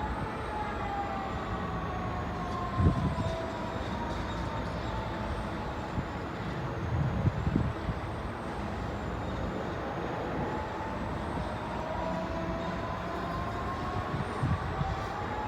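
Piling rig's diesel engine and hydraulics running steadily. A whine sinks slowly in pitch, then climbs again near the end, and there are a few dull knocks about 3, 7 and 14 seconds in.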